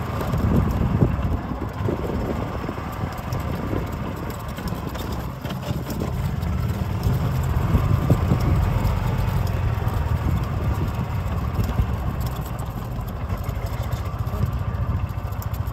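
Golf cart driving along a sandy track: a steady low rumble of motor and tyres, with scattered knocks and rattles as it bumps along.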